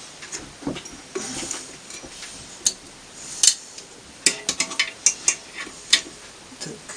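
Small metal valve parts and tools clicking and clinking while the valves are reassembled on the cylinder head: scattered single clicks, then a quick run of about seven clicks in the middle.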